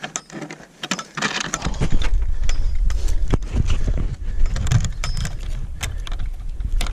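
Old wooden gate being handled and pushed through: scattered knocks and clicks of the wooden boards and a rattling metal chain fastening. From about a second and a half in, a heavy low rumble on the microphone is the loudest sound.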